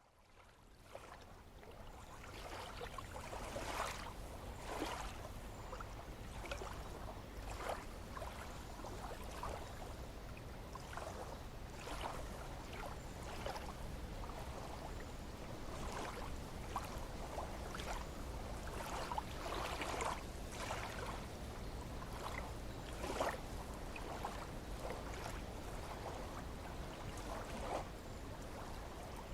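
Water lapping and splashing in small irregular slaps, over a steady low rumble; the sound fades in over the first couple of seconds.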